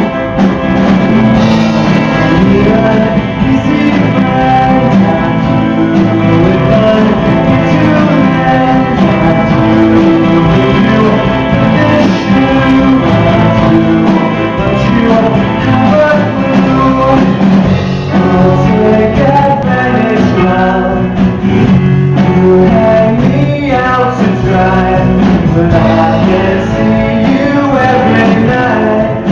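A band playing a song live, with guitar and a singing voice.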